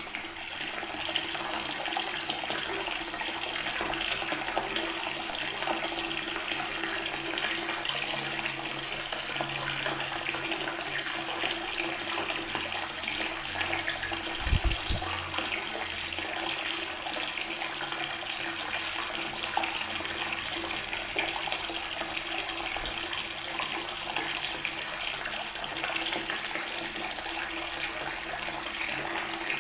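Water tap running steadily, the stream splashing onto natural stone as a continuous hiss. A brief low thump comes about halfway through.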